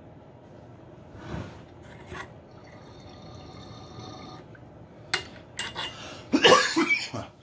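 Water sloshing and dripping inside a glass bong as it is handled, with a few glass clicks after about five seconds, then a loud burst near the end.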